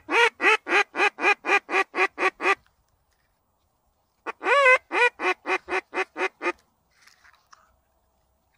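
Hen mallard quacking in the hen's descending series: a run of about ten quacks, then, after a pause of under two seconds, a second run of about nine. Each run starts with its loudest quack and then drops a little in volume.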